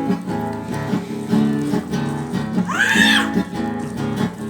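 Acoustic guitar strumming an instrumental break between sung verses, with a short high whoop that rises and falls about three seconds in.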